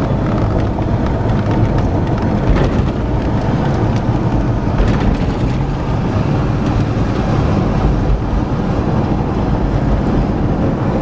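Steady low rumble of a car's tyres and engine heard from inside the cabin while driving along a paved road.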